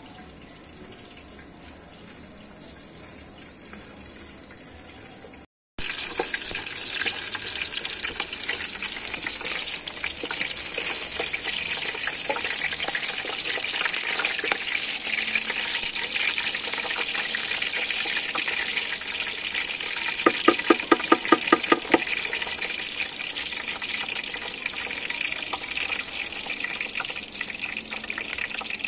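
Water running in a steady rush, coming in loud after a sudden break about five and a half seconds in, with a fainter hiss before it. A quick run of about a dozen clicks sounds near the two-thirds mark.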